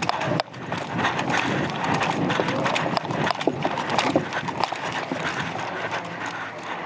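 Footsteps of a player in airsoft gear moving over dirt and grass close to the microphone: irregular crunching steps with rustling between them.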